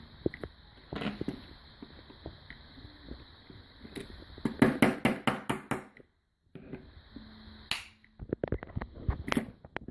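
Clicks and knocks of hand work on a car door lock, with a quick run of about six sharp clicks about halfway through.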